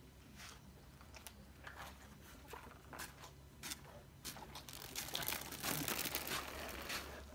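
Faint crinkling and rustling with scattered small clicks, growing busier and denser for the last few seconds.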